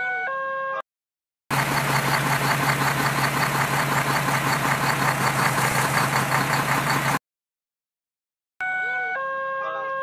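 Electronic alarm tones stepping between a few fixed pitches stop short about a second in. After a brief silence comes about six seconds of a loud, dense, rattling vehicle noise over a steady low hum. Another short silence follows, then the stepped alarm tones start again near the end.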